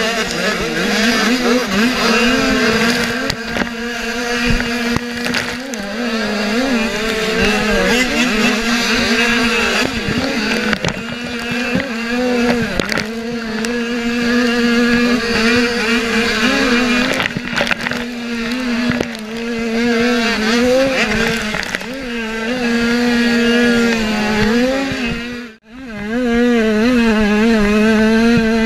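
Motocross dirt bike engine running hard under race throttle, close to the microphone, its pitch wavering up and down as the throttle opens and closes, with knocks from the bike hitting bumps. The sound drops out briefly about 25 seconds in.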